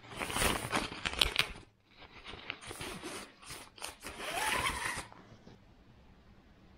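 Rustling, scraping and crinkling from a telescopic fishing rod being handled and set up, in three irregular clusters of noise over about five seconds before it goes quiet.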